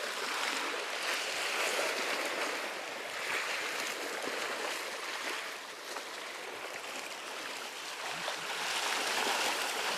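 Small sea waves washing and lapping against the rocks of a seawall, a steady wash of surf.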